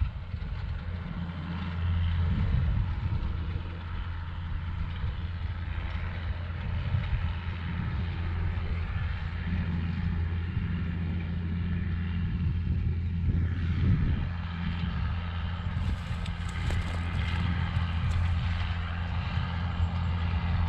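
Challenger MT635B tractor's Sisu 7.4-litre six-cylinder diesel running steadily under load while pulling a side-dress nitrogen applicator: an even low hum with fainter higher tones above it.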